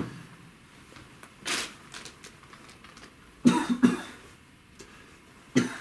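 A person coughing: a short cough about a second and a half in, a loud burst of several quick coughs around the middle, and one more just before the end.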